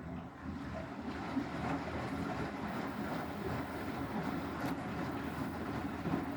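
Beko WTK104121W washing machine in a 60-degree cottons wash: the drum starts turning suddenly and keeps tumbling, a steady rumbling churn of the motor and the wet load.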